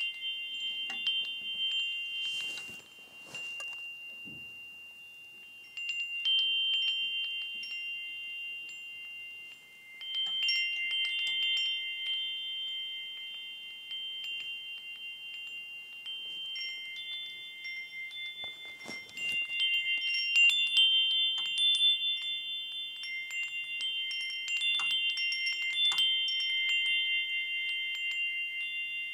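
Wind chimes ringing: several high tones ring on and overlap, struck again in clusters that swell a few times.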